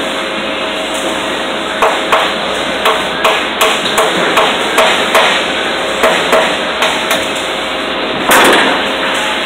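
Hammer striking metal: about a dozen sharp blows at roughly three a second, with a short pause partway through, over a steady hum of shop machinery. A louder, longer metallic clatter comes near the end.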